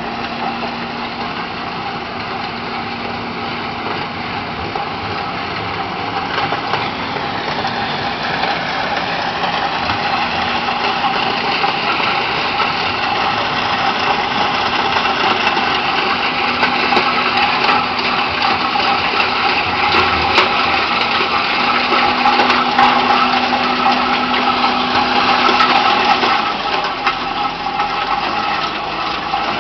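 LTMG LT65 skid steer loader's engine running steadily with the snow blower attachment, growing gradually louder until near the end and then easing off a little.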